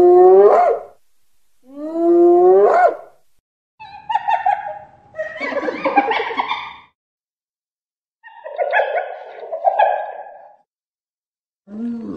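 African wild dog calling: two rising hoo calls about a second apart, then two longer stretches of rough, higher-pitched chattering yelps.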